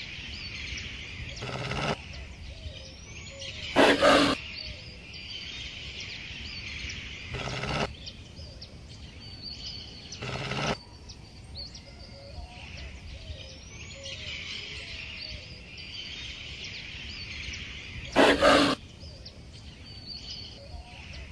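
Five short, harsh animal snarls break over a steady background of birds chirping and insects buzzing; the loudest come about four seconds in and near the end. They are the sounds of a jackal attacking a wounded stork.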